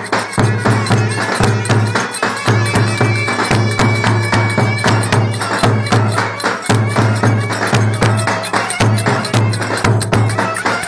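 Turkish wedding dance music played live: clarinets carry the tune over a steady pulsing drum beat, with sharp rhythmic clicks of hand percussion.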